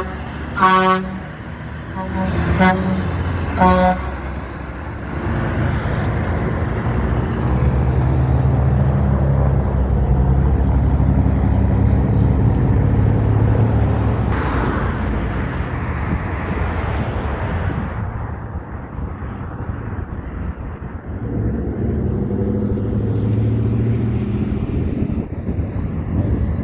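Big truck's horn sounding three short blasts in the first four seconds, then heavy truck engines running loudly as trucks go by, one after another.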